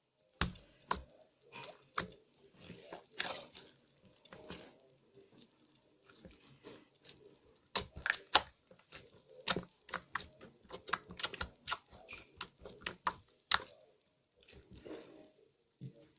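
Slime being squeezed and poked by hand, giving irregular sticky clicks and pops, quickest in the middle.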